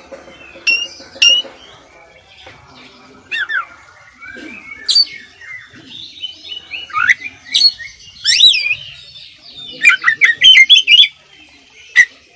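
Oriental magpie-robin (kacer) singing a varied song of loud whistles, sharp chirps and quick up-and-down glides; the phrases come sparsely at first, then grow denser, with a rapid run of notes near the end.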